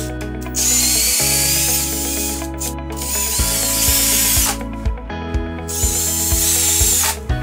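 Cordless drill fitted with a Milwaukee right-angle attachment driving a screw into timber: the motor and gearhead whine in three separate runs, starting and stopping. Background music with a steady beat plays underneath.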